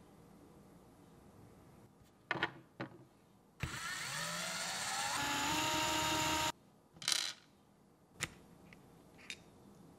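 Electric screwdriver with a hex bit running for about three seconds, its whine rising in pitch and then holding steady as it backs a screw out of a plastic RC portal axle housing. Small screws and parts click against the work surface a few times before and after.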